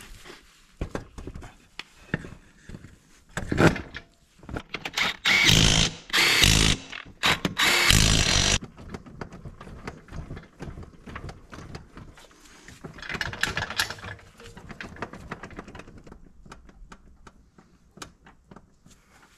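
Front wheel of a Honda TRX 500 quad being refitted and rocked by hand on its hub. A power tool runs in two bursts of a second or two, and the wheel knocks and clicks as it is worked back and forth. The knocking comes from free play still left in the wheel, which the owner traces to a loose castle nut.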